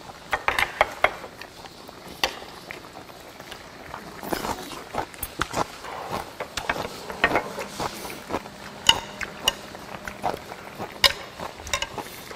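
Eating at the table: metal chopsticks clicking and clinking against bowls and plates in many short, irregular taps, with chewing between.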